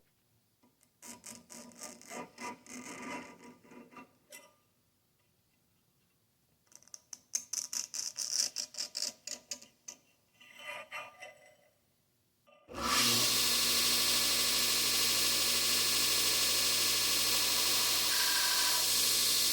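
Irregular scraping strokes of steel being worked by hand, with pauses. About 13 seconds in, a belt grinder starts and runs with a steady, loud hiss and whine.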